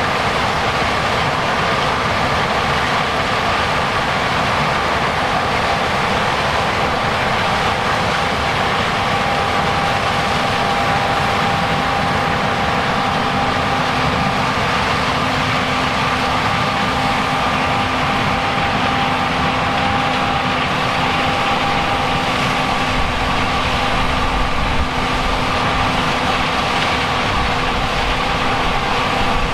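Large diesel harvest machinery running steadily under load, a continuous engine rumble with several steady whining tones from its drives; the low rumble grows heavier near the end.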